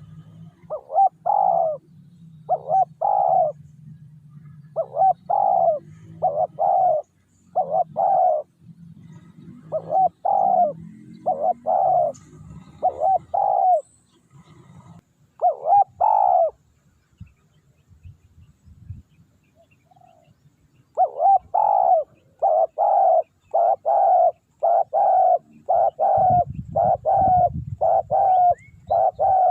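Spotted doves cooing: short coo notes in groups of two or three, a pause of a few seconds, then a long, closely spaced run of coos from about two-thirds of the way in. A low rumble lies underneath at times.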